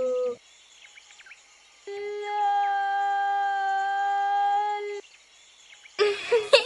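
A steady, unwavering hummed note held for about three seconds, starting about two seconds in, over faint bird chirps. A short, loud, harsh noisy burst comes near the end.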